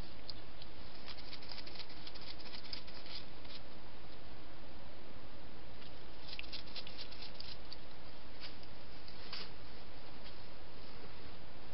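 A wild hedgehog moving about on paving and grass: bursts of small quick clicks and rustles, with a couple of single clicks near the end, over a steady hiss.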